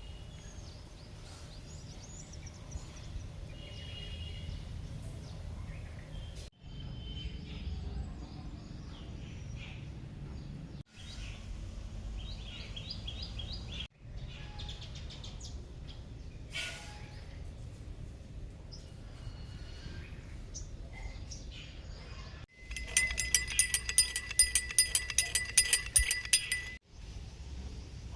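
Birds chirping and calling outdoors over a steady low rumble of wind on the microphone, in a string of short clips. Near the end a loud, fast, evenly repeated high call runs for about four seconds.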